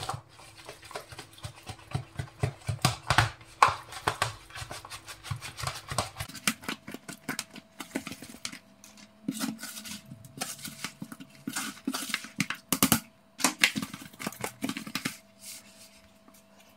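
Fish pieces being tossed and turned by hand in a bowl of dry flour coating, with irregular knocks against the bowl and rustling, over a faint steady hum.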